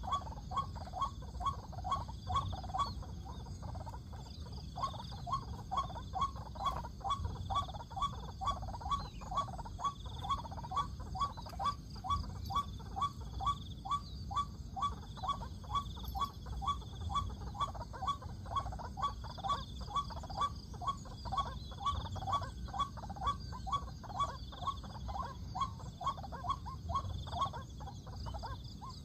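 White-breasted waterhen (ruak-ruak) calls played from an electronic lure caller set inside a snare. A steady, unbroken run of repeated "kru-ak" notes comes about two a second.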